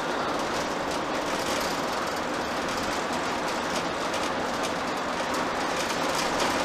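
Steady road noise inside a motorhome's cab while it cruises on a highway: an even rush of tyres, wind and engine.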